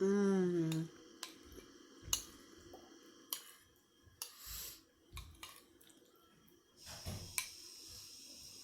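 A woman's short hummed 'mmm', falling slightly in pitch, followed by scattered light clicks and taps of small objects being handled, with a short breathy rush about four and a half seconds in.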